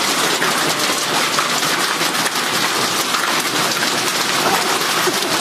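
Heavy rain mixed with hail pouring down, a loud steady hiss full of fine ticks of drops and hailstones striking.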